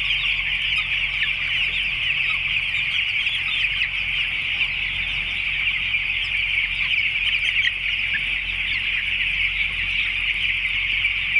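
Dense, continuous peeping of a large flock of nine-day-old broiler chicks, many high, short calls overlapping with no pause.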